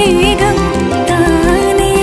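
Background music with a steady beat under a held, wavering melody line.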